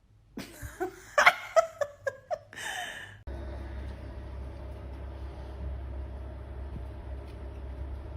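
A person laughing in a quick series of sharp bursts for about three seconds, then cut off abruptly by a steady low hum.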